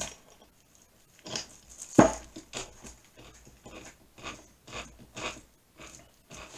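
A chuck key turning in a 5-inch three-jaw lathe chuck to open its jaws, giving a string of short metal clicks and knocks at uneven spacing, with one louder knock about two seconds in.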